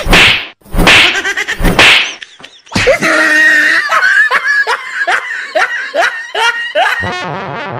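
Loud slap or punch hits during the first two seconds of a scuffle. Then a steady run of laughter, short 'ha' syllables about two a second, lasting about four seconds.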